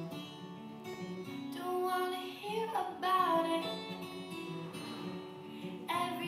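Soundtrack music led by plucked acoustic guitar, with a singing voice coming in briefly about halfway through.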